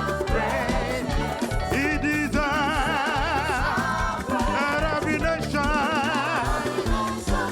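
Lively gospel praise band music with a steady, pulsing bass line and a wavering melodic lead line above it.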